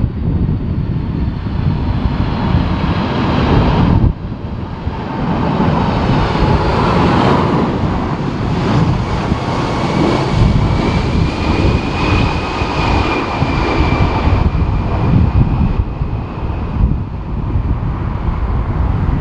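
Jet airliner engines whining under heavy wind buffeting on the microphone. About four seconds in the sound drops suddenly, like a cut between shots, and later a high engine whine swells and fades gently.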